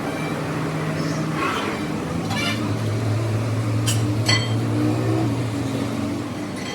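Workshop machine motor humming steadily, its pitch dropping about two seconds in, with a few light metallic clinks about four seconds in.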